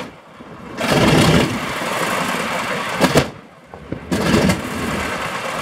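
Grumman Avenger's Wright R-2600 fourteen-cylinder radial engine starting up: it fires in uneven spurts with short drops in between and a sharp pop about three seconds in, then catches and runs steadily, smoking heavily as on a cold start.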